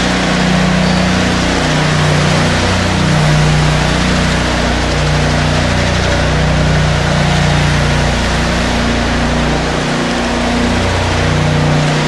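Ride-on twin-rotor power trowel running steadily as it finishes a fresh concrete floor: an engine hum that wavers a little in pitch, under a constant hiss.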